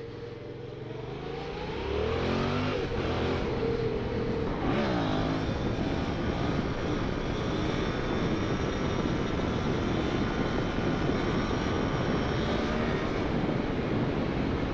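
Motorcycle engine revving up as it pulls away, rising in pitch, with a dip and climb again about four and a half seconds in as it shifts gear. After that, steady wind rush over the microphone at road speed drowns most of the engine.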